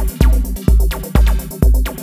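Electronic dance music with a steady heavy kick drum and deep bass, about two beats a second.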